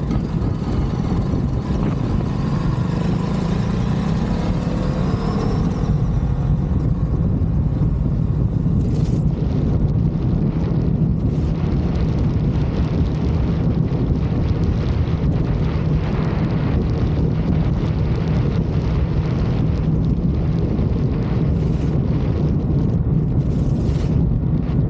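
Ducati DesertX's 937 cc Testastretta V-twin engine running as the bike rides along a dirt track, with wind rushing over the microphone. The engine note rises in the first few seconds as it accelerates, then holds steady.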